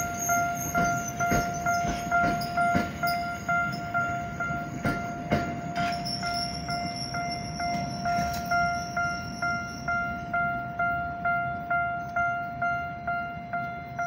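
Level-crossing warning bell ringing in a steady, rapid repeating chime, about two strikes a second. Over the first few seconds a Tokyo Metro Ginza Line train's wheels click over the rail joints as it crosses.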